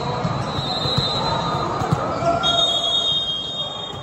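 Indoor court game sounds: a couple of sharp ball thuds, about one and two seconds in, and high sneaker squeaks on the court floor, over a steady bed of crowd chatter.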